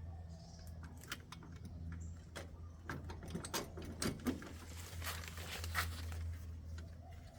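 Scattered small clicks, taps and rattles of metal door-lock hardware being handled and fitted, bunched in the first half, over a steady low hum.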